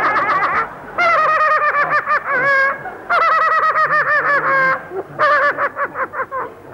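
A man's high falsetto cackling laugh: fast runs of short, repeated hooting notes, in about four bursts with brief breaks between them.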